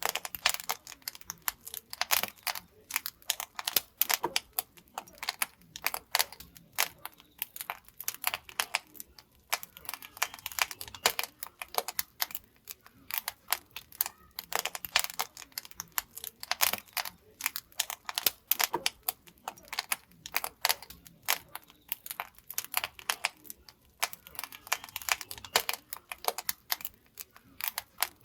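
Wood fire burning in a traditional Korean wood-fired pottery kiln, crackling and popping in dense, irregular clicks.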